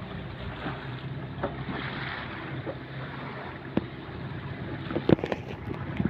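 Small wooden fishing boat's engine running steadily, with wind and water noise. A few sharp knocks near the end.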